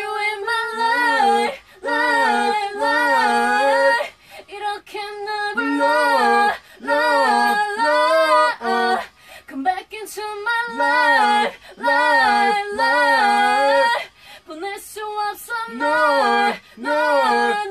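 A woman singing a cappella: a single voice with no accompaniment, in sung phrases of a second or two broken by short breaths.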